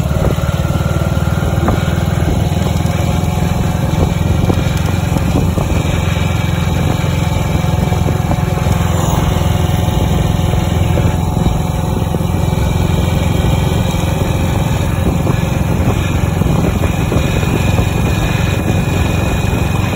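Classic motorcycle engine running steadily under way, heard from the rider's seat.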